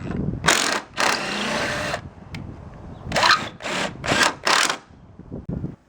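Black & Decker Matrix 20V cordless power tool with a quick-connect attachment, run in trigger bursts. A short burst comes first, then a run of about a second, then four short bursts about half a second apart.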